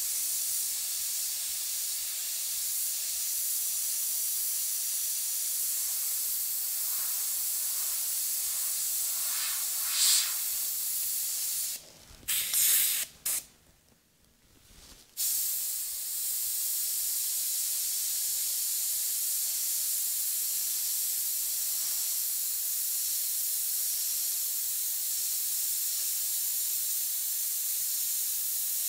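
Iwata HP-CS Eclipse gravity-feed airbrush spraying paint: a steady hiss of air. Near the middle it gives a few short louder bursts, then stops for about three seconds before the steady hiss resumes.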